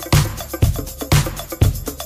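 Background music with a steady beat of about two beats a second.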